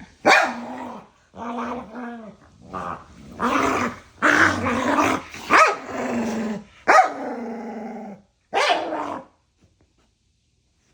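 Two dogs yapping and growling at each other in a playful argument, not a real fight: a string of barks and drawn-out growly yaps that stops about nine seconds in.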